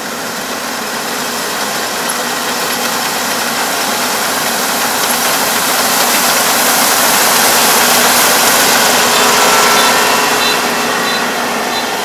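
Rice combine harvester running and cutting flattened, lodged rice, its engine and threshing noise steady. It grows louder as the machine comes close, then eases off near the end as it pulls back.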